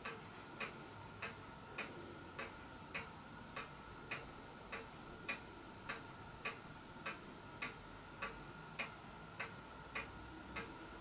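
Faint, evenly spaced ticking, a little under two ticks a second, over a faint steady tone.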